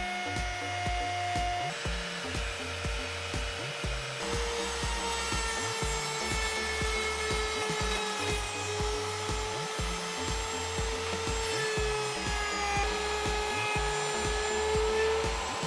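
Router in a router table running steadily with a held whine as a straight flute bit cuts a groove along walnut boards. Background music with a steady beat plays underneath.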